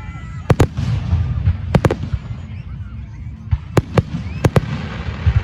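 Fireworks shells bursting overhead: about eight sharp bangs, several in quick pairs, over a continuous low rumble.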